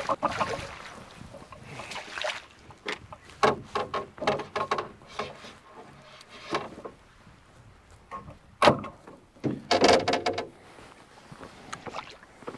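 Irregular knocks, taps and clatter of hands and gear working inside a canoe, with one sharp knock a little past the middle and a busier burst of clatter soon after.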